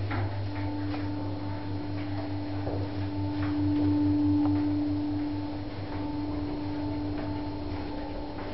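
Glass passenger lift travelling: a steady hum with a held mid-pitched drive tone that starts about half a second in and swells slightly midway, with a few faint ticks.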